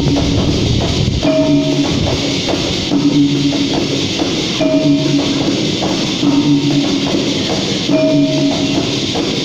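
Dikir barat music: a percussion ensemble of rebana frame drums and jingling shakers keeps a steady beat while the chorus sings short held notes in a phrase that repeats about every second and a half.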